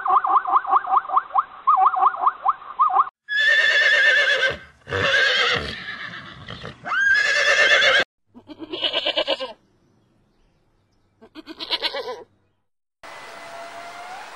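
A zebra calling in a rapid run of short yelping barks, followed by a goat bleating five times: three long loud bleats, then two shorter trembling ones. A faint steady outdoor background follows near the end.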